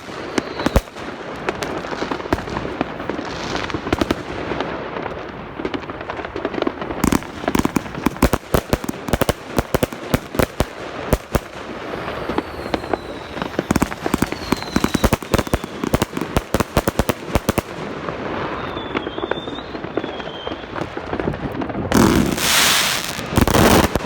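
New Year's Eve fireworks going off in rapid, dense volleys of sharp bangs and crackle from salute batteries, with a few gliding whistles. Near the end comes a loud, unbroken stretch of bangs and noise about two seconds long.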